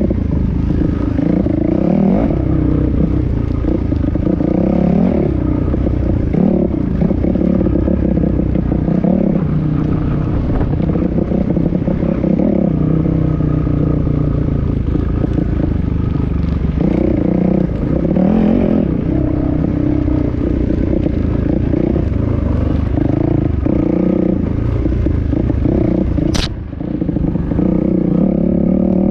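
Dirt bike engine running under changing throttle, its pitch rising and falling as it revs through the rough track, with clattering from the bike over the bumps. About three-quarters through there is a single sharp click, followed by a brief dip in engine noise.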